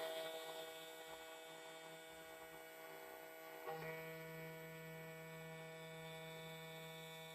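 Faint background music: sustained chords that change about halfway through.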